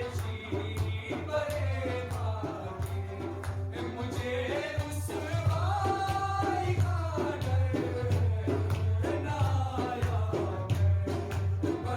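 Background music: a singing voice with gliding melodic lines over a steady rhythmic drum beat.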